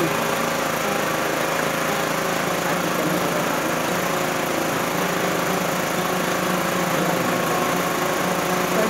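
Two amplified guitar-type lutes playing a steady, continuous instrumental passage of Maguindanaon dayunday music, with no singing.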